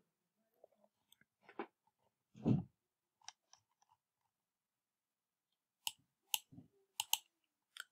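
A few quiet computer-mouse clicks, most of them in the last two seconds, among soft mouth noises close to the microphone.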